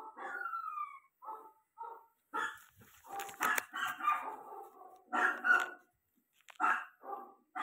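Dog barking and whining in a string of short calls, opening with a whine that falls in pitch.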